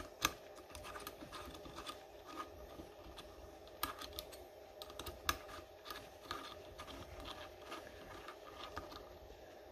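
Light, irregular metallic clicks and ticks of a hex key turning the screws out of a taper-lock bushing on a servo motor's pulley.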